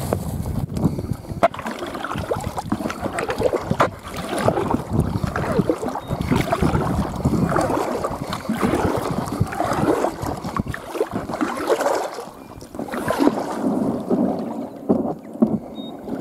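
A kayak paddle dipping and splashing in lake water in uneven strokes, with water lapping at an inflatable kayak's hull and some wind on the microphone.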